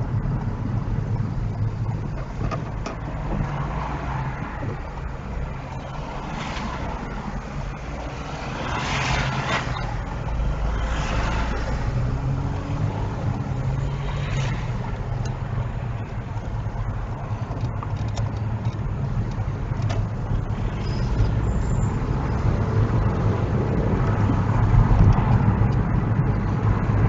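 A car driving along, with steady engine and road noise and a few brief swells of louder noise about a third of the way in.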